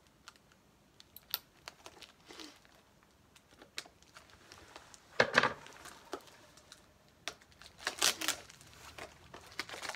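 Plastic packaging crinkling and tearing as it is pulled off a small plastic drawer unit, with scattered sharp clicks. The loudest rustles come about halfway through and again near the end.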